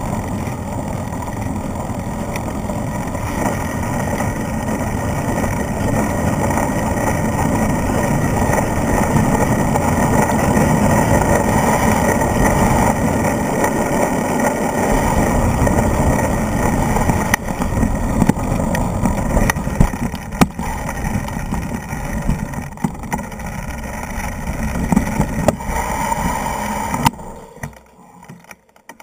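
Wind rumble on a moving mountain bike's camera microphone, mixed with tyres rolling on a dirt track and the bike rattling. A few sharp knocks come in the second half, and the sound drops away near the end.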